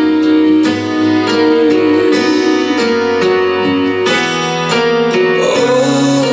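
A song with plucked guitar and keyboard notes playing loudly through a JBL Flip 2 portable Bluetooth speaker.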